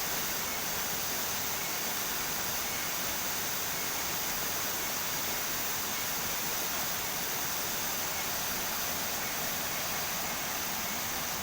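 Steady rushing of a waterfall, an even unbroken wash of falling water.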